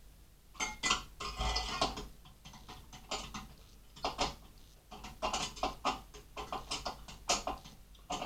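Irregular metallic clicks and clinks from CPU cooler mounting hardware being handled and screwed down with a screwdriver.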